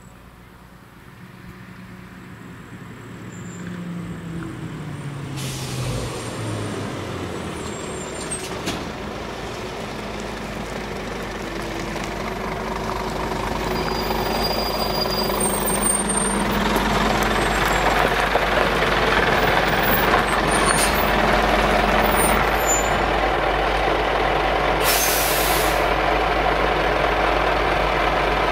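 Heavy lorry approaching and drawing up, its diesel engine growing steadily louder, with a brief sharp hiss from its air brakes near the end.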